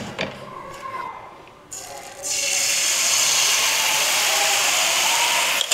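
Thin rice-flour batter poured onto a hot iron tawa, sizzling steadily from about two seconds in.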